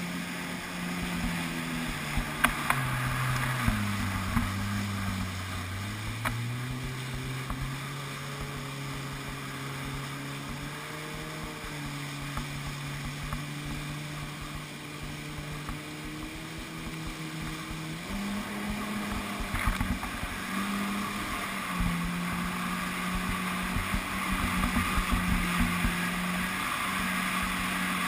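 Jet ski engine running under way, with water spray and wind rushing past. The engine note drops a few seconds in, holds lower, then climbs back up later on.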